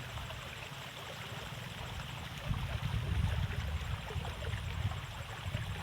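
Water running and trickling in a narrow rice-field irrigation ditch. A low, uneven rumble joins it from about halfway through.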